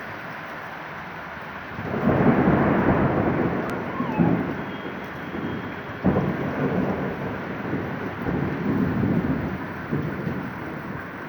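Thunder over steady rain: a rolling rumble builds about two seconds in, a sharp crack comes about six seconds in, and further rumbles die away toward the end.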